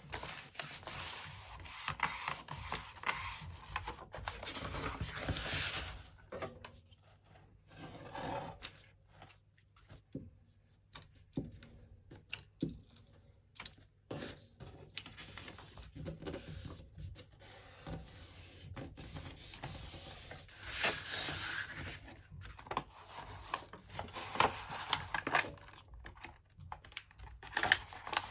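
Hands handling and rubbing paper and cardboard: irregular rustling and rubbing strokes with light taps, coming in bursts with short pauses.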